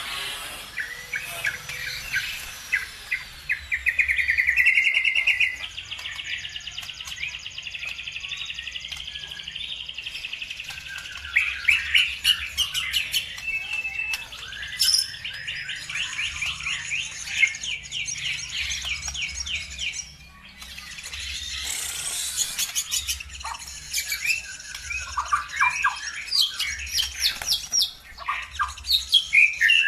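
Songbirds singing energetically in fast chattering trills and rapid repeated chirps, one bird answering another. A loud, very fast trill comes about four seconds in, followed by a long buzzy trill.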